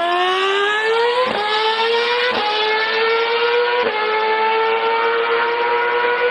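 Formula One V8 engine accelerating hard, its pitch climbing and dipping briefly at each of three upshifts, a little over a second, about two and a half seconds and about four seconds in.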